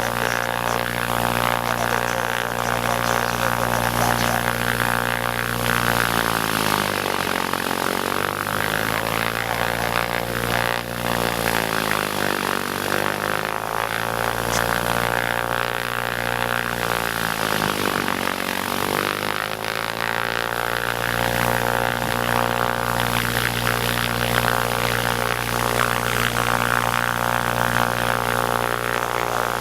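Mooney M20E's single piston engine and propeller droning steadily. Between about 6 and 20 seconds in, the tone wavers in three slow downward-and-back sweeps.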